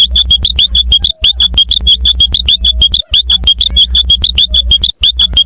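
A cartoon sound effect boosted to an ear-splitting, distorted volume: rapid high electronic chirps, about ten a second, over a heavy low buzz. It repeats in runs of about two seconds, broken by short gaps.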